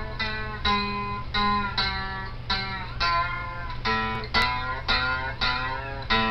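Slide-played plank string instrument, a diddley-bow-style lap slide, plucked in a steady run of notes about two to three a second, some notes sliding in pitch. A low steady hum sits under it.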